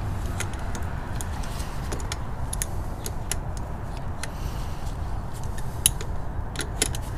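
Irregular metallic clicks and clinks of two 14 mm box-end wrenches on the cruise control cable's adjuster nuts as they are tightened, over a steady low background rumble.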